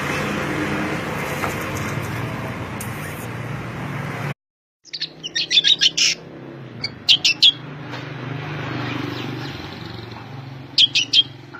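Bird chirping in quick clusters of sharp, high notes, three bursts in the second half, over steady background noise. The sound drops out completely for about half a second some four seconds in.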